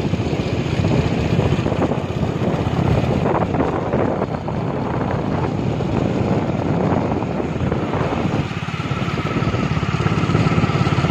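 Motorcycle engine running at riding speed, with wind noise on the microphone. About three-quarters of the way in, a thin steady whine joins the engine sound.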